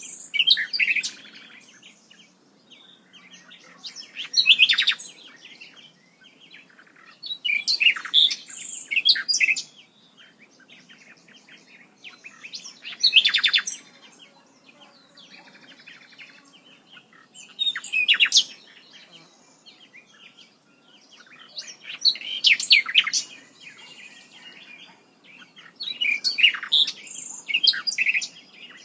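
A songbird singing short, bright, chirping phrases, repeated every four or five seconds.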